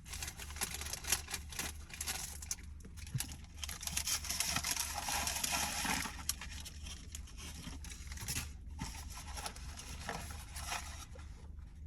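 Paper fast-food wrapping being handled close to the microphone: dense crinkling and rustling with many small clicks, heaviest in the middle.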